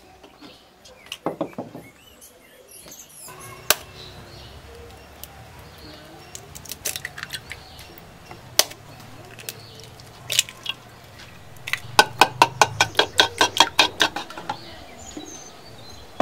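Clay pots and bowls clinking and tapping. Near the end there is a fast, even run of about fifteen taps, like an egg being beaten with a spoon in a clay bowl.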